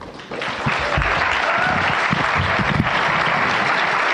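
Audience applause, swelling over the first second and then steady.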